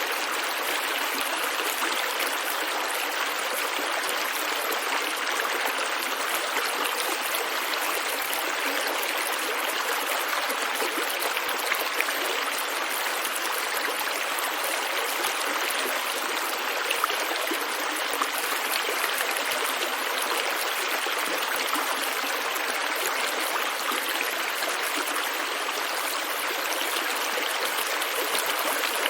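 A stream of running water flowing steadily: an even, unbroken rush with small splashy clicks scattered through it and almost no low rumble.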